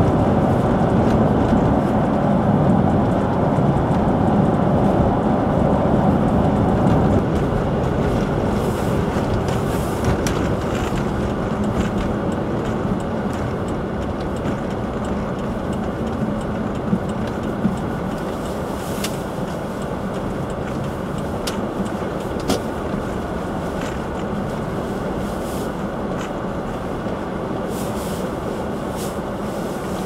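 Steady road and engine noise from inside a car's cabin driving on a snow-covered road, easing slightly about a quarter of the way in, with a few brief sharp ticks in the second half.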